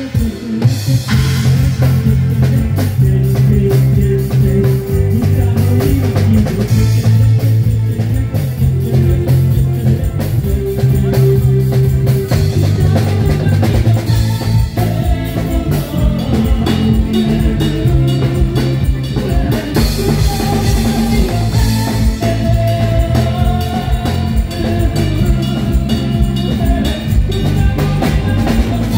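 Live band playing amplified music: a drum kit keeps a steady beat under electric guitars and a low bass line, with a melody line coming in about halfway through.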